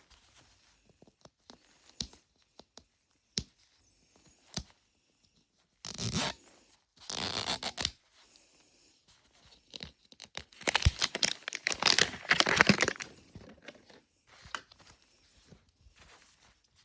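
Plastic shrink wrap being torn and crinkled off a Mini Brands capsule ball: a few sharp clicks, then short ripping bursts and a longer stretch of tearing and crinkling a few seconds later.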